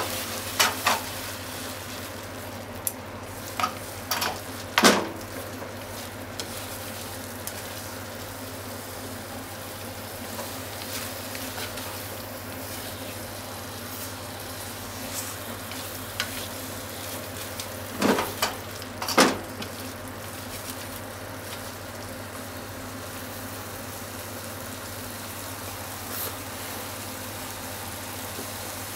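Cubes of thick deep-fried tofu (atsuage) and green onion sizzling in sauce in a frying pan, with a few sharp knocks as they are stirred with wooden chopsticks: a cluster about four to five seconds in and two more at about eighteen and nineteen seconds. A steady low hum runs underneath.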